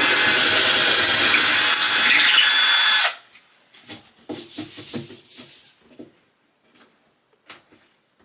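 Power drill running steadily for about three seconds and stopping suddenly, putting in a wall anchor for a mirror; then a run of light knocks and clicks.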